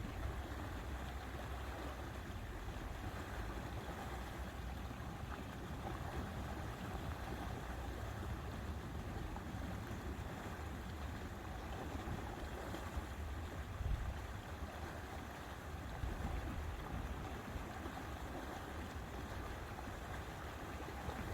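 Outdoor wind with a low rumble of wind buffeting the microphone over a steady hiss, with two brief stronger gusts about two-thirds of the way through.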